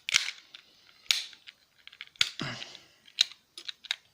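Plastic alarm clock parts being handled and pried apart: sharp clicks and small cracks of the plastic casing and components, four louder clicks about a second apart with lighter clicks and scraping between.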